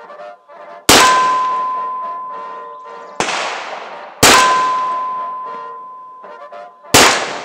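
Pietta 1858 Remington "The Ace" snub-nose .44 cap-and-ball revolver firing four black-powder shots, each report trailing off in a long echo. The second shot is noticeably softer than the other three.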